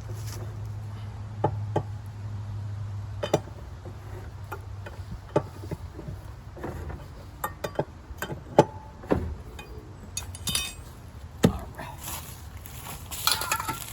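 Hand tools and metal parts knocking and clinking in scattered sharp hits, with a ringing cluster of metallic clinks near the end, over a low steady hum that fades about five seconds in.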